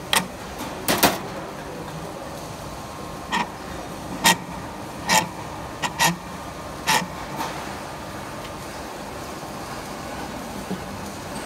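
Sharp metallic clicks and knocks from parts and tools being handled on a steel machine table, about eight of them over the first seven seconds, over a steady background of workshop noise.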